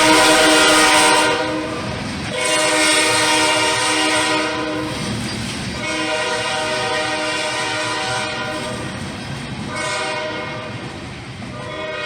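Diesel locomotive air horn blowing a series of blasts (long, long, short, then another starting near the end) over the rumble of a passing train.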